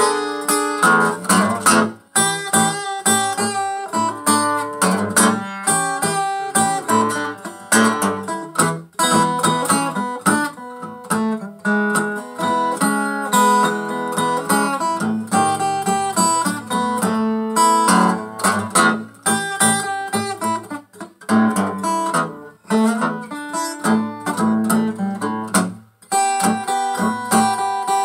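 Takamine EF360STT dreadnought acoustic guitar with cracked sides, played as an instrumental blues passage: steady strummed chords mixed with picked single notes, with a jangly ring.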